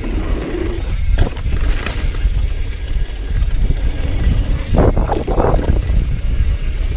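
Wind buffeting the microphone and tyre noise on dirt during a fast mountain-bike descent, with clattering knocks from the bike about a second in and again around five seconds in as it rides over bumps.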